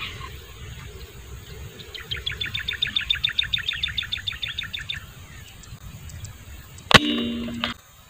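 A single sharp airgun shot near the end, followed by a short ringing tone that cuts off abruptly. Earlier, a fast rattling series of clicks, about ten a second, runs for about three seconds over a low outdoor rumble.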